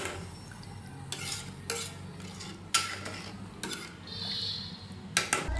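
A ladle stirring a watery mix of rice, moong dal and vegetables in an aluminium pressure cooker, with several short scrapes and knocks against the pot spread through the stirring.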